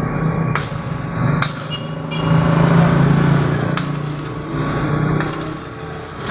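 Arc welding with a Kawasaki 300 A inverter welding machine: the arc crackling over a steady low buzz, with a few sharp pops.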